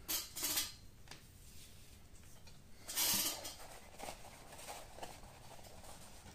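Leather pouch and suede lacing cord being handled and turned over on a wooden table: soft rustling and rubbing, with a short brushing rustle about three seconds in as the loudest.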